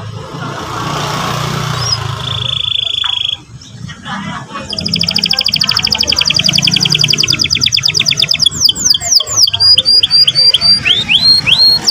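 Canary singing: a short held whistled note, then a long fast rolling trill, breaking near the end into quick down-sweeping notes, a run of short repeated notes and rising notes.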